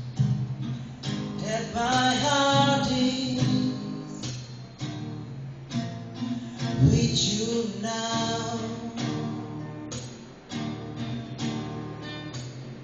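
A man singing a song to a strummed acoustic guitar, the voice rising and falling through sung phrases over steady chords.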